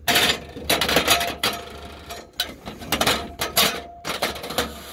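Small metal mounting brackets being slid along the track of a metal truck side step and set in place: a run of irregular scrapes, clicks and knocks, metal on metal.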